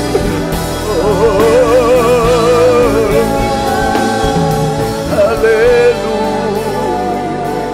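Worship team singing an Indonesian praise song with accompaniment, the voices holding long notes with a wide vibrato.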